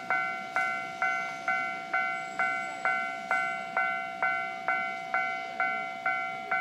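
Japanese railway level-crossing warning bell ringing steadily, about two dings a second, each ding dying away before the next. The crossing is closed while a train is awaited.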